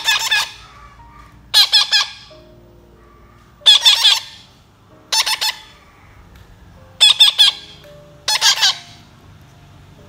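Baby parakeets giving harsh, raspy begging squawks while being hand-fed papaya, in six short bursts of rapid repeated notes about every one and a half seconds.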